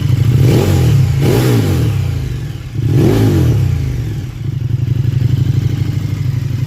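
KTM 1290 Super Duke R Evo's V-twin idling and blipped three times, two quick revs then a third, through the stock muffler with its dB killer cut out and the exhaust flapper valve deleted. The exhaust note is deep and bassy, raspy in the mid-range.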